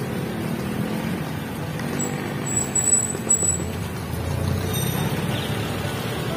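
Street traffic heard from a moving bicycle: a motorcycle-sidecar tricycle's engine running close ahead, with jeepney traffic, over steady road and wind noise. A thin high whine sounds for under two seconds, starting about two seconds in.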